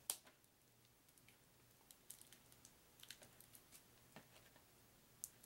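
Faint, scattered small clicks and light taps of a deck of playing cards being handled, with a sharper click at the start and another near the end.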